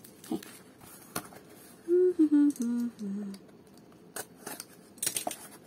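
A person humming a short tune of four notes that step down in pitch, with a few sharp clicks and scrapes from a utility knife cutting open a plastic mailer and the tape on a cardboard box.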